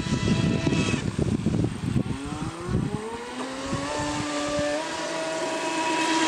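Radio-controlled speedboat's motor whining at speed, its pitch climbing from about two seconds in and stepping up again near five seconds before holding steady. A low rumbling noise sits under it for the first few seconds.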